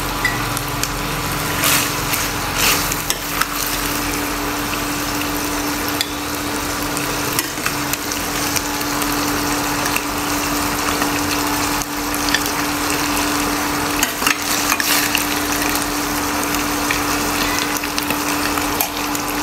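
Braised pork in shrimp paste still sizzling in a hot stainless steel pan on a just-switched-off induction cooktop, with a few clinks and scrapes of the spatula against the pan as the meat is scooped out. A steady hum runs underneath.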